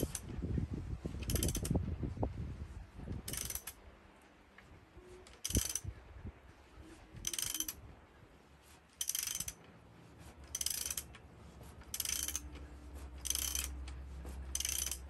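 Socket ratchet clicking in short runs about every second and a half as it is swung back and forth, turning a bolt that draws a cast iron valve guide up out of an old engine block under tension. There are a few low knocks in the first seconds.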